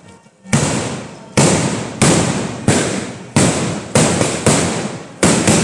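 A chain of kathina, Kerala's iron-tube ground firecrackers, going off one after another along a line: about ten loud blasts, roughly one every half second to second, each dying away before the next, coming faster near the end.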